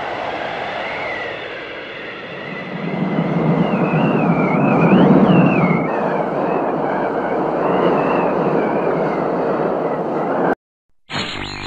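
A rumbling, rushing noise with wavering high squealing tones swells louder around the middle, then cuts off suddenly near the end. After a short gap, the crackling static of an old valve radio being tuned begins.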